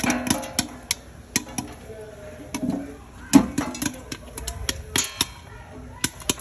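Popcorn kernels popping: sharp, irregular pops, a few a second, with some close together in quick runs.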